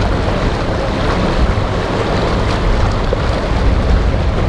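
Boat engines running through a rough inlet, with waves splashing and wind buffeting the microphone in a steady rumble.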